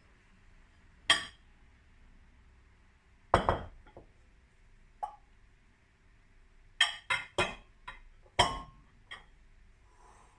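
Kitchenware clinking and knocking as it is handled and set down: single sharp knocks about a second in and a louder one with a short ring at about three and a half seconds, then a quick run of clinks and knocks near the end.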